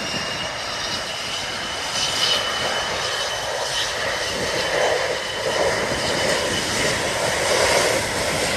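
Private jet's engines spooling up for the take-off run: a steady jet roar with a high whine that rises slightly at first.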